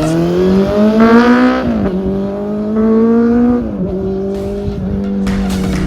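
Honda CB400 Super Four (NC39) inline-four with a Yoshimura slip-on muffler, accelerating through the gears. The revs rise, drop at an upshift about 1.7 s in, rise again, and drop at a second shift near 3.7 s before holding steadier. The exhaust note is muffled.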